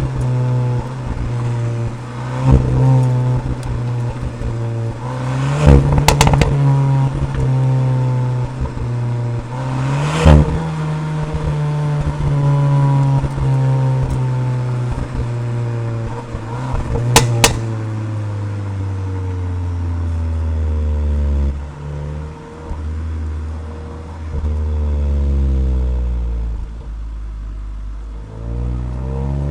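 Cupra Leon ST VZ's turbocharged 2.0 TSI four-cylinder pulling up through the revs several times, with sharp cracks from the exhaust as it changes gear. In the second half the revs fall for a long stretch as the car slows, then pick up again twice near the end.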